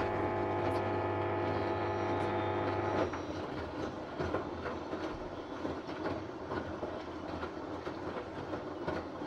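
LG F1403RD washing machine's circulation pump buzzing steadily with a strong low hum, the sign of a failed circulation pump. The buzz cuts off suddenly about three seconds in, and irregular rattling and clicking follow.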